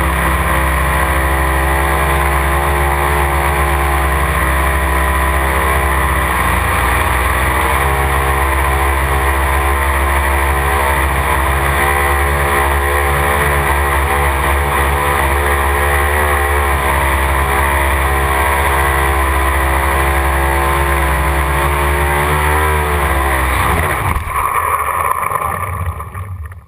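Radio-controlled model copter's motor and rotors running steadily, heard up close from the camera mounted on it, the pitch wavering slightly in flight. About 23 seconds in the pitch drops as it lands and spins down, and the sound dies away near the end.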